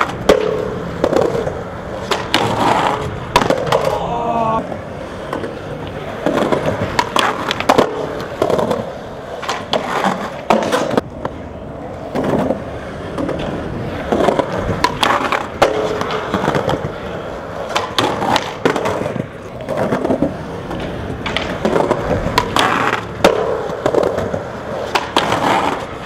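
Skateboard rolling on concrete, broken by many sharp clacks as the board is popped, hits and scrapes along a concrete ledge, and lands, attempt after attempt.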